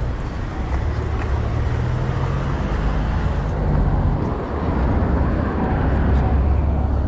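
City street traffic noise: vehicle engines running with a steady low rumble.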